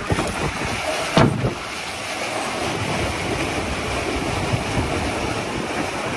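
Melges 24 sailboat sailing fast downwind, its hull rushing through waves with water and spray hissing along the side, and wind buffeting the microphone. A brief loud thump about a second in.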